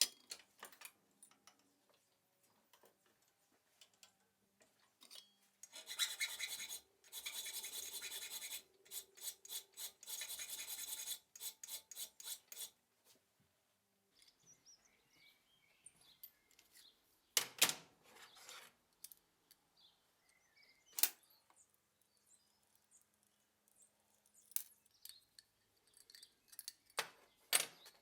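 Rapid back-and-forth rasping strokes of hand abrasion on a steel knife part, lasting about six seconds, followed by a few scattered sharp metal clicks as parts are handled.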